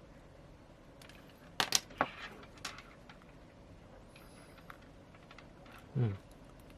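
Small hard tools clicking and tapping against a phone being pried open, in a quick cluster about a second and a half in. Near the end there is one short low sound that drops in pitch.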